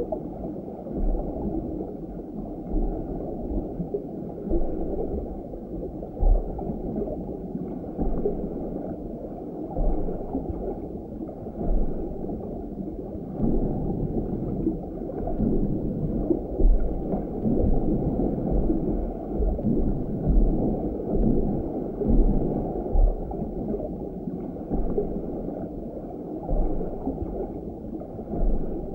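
Muffled underwater sound picked up by a GoPro inside its waterproof housing: dense churning water noise with low bumps every second or two as the housing sways on its line.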